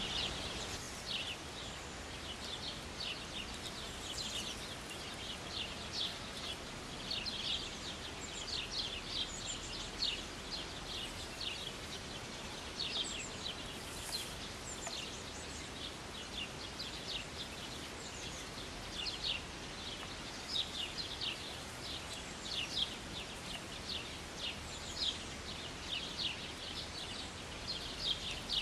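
Small birds chirping: many short, high calls, dense and irregular, over a steady hiss of background noise.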